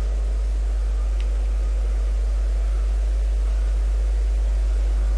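Steady low electrical hum with a faint hiss over it, and one faint tick about a second in.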